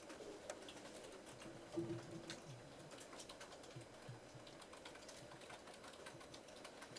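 Faint typing on computer keyboards: scattered, irregular key clicks, with one brief low sound about two seconds in.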